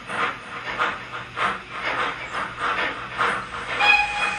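Steam locomotive exhaust chuffing steadily at about two beats a second, the sound of a class 52 locomotive working slowly ahead. About four seconds in a short whistle note sounds over the chuffs.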